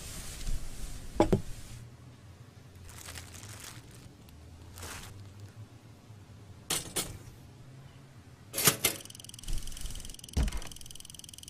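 A series of short sound effects: scattered whooshes, thumps and clicks, with a double click in the middle and a quick cluster of clicks a little later. About nine seconds in, a steady high-pitched chirring starts and carries on.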